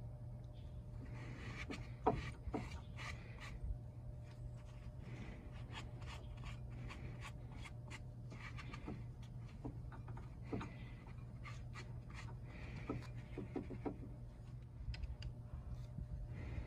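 Paper towel rubbing against a brake caliper piston and bore as brake dust is wiped off, a scratchy rubbing that comes and goes, with scattered light clicks and taps on the metal. A low steady hum runs underneath.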